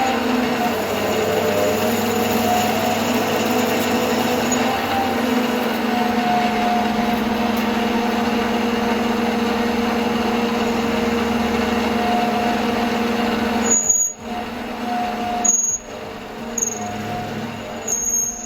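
Bernardo Profi 550 WQV mini metal lathe running: a steady whine from the motor and gears over a hiss. About 14 seconds in the steady sound breaks up into uneven stretches with a few brief high squeaks.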